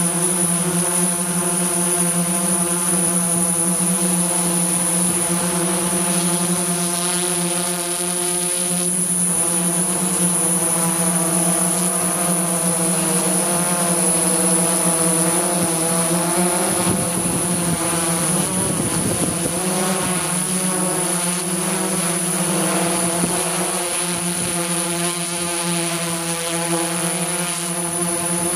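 Multirotor drone's motors and propellers buzzing steadily in flight, the pitch wavering slightly as the motor speeds change.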